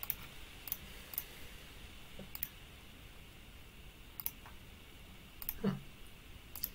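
Sparse single clicks from working at a computer, about seven over several seconds and irregularly spaced, over a faint steady room hiss.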